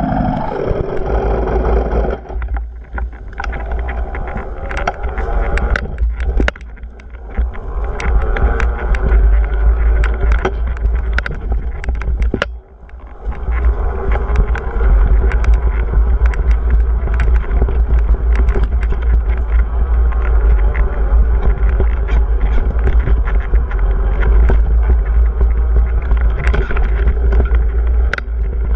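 Dirt bike engine running under way, with wind buffeting the bike-mounted microphone and frequent sharp knocks and rattles from the bike. The engine briefly drops away about halfway through, then picks up again.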